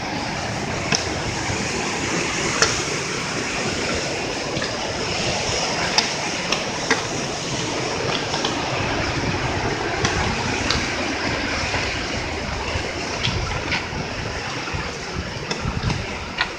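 Steady rush of the Río Borosa's flowing water, with a few sharp clicks of footsteps on the stony trail.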